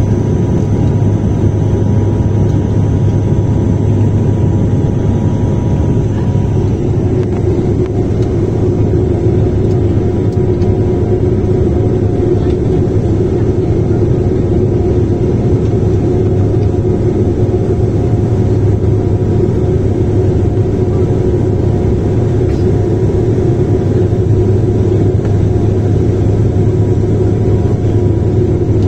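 Steady cabin drone of a high-wing turboprop airliner's engines and propellers on the landing approach, a strong low hum with steady tones above it. A higher steady tone joins about seven seconds in.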